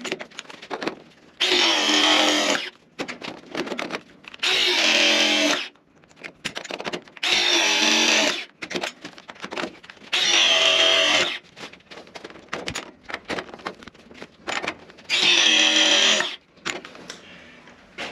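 Ridgid RP 241 battery press tool's motor running in five short runs of just over a second each, crimping copper press fittings onto copper pipe. Small clicks and knocks come between the runs.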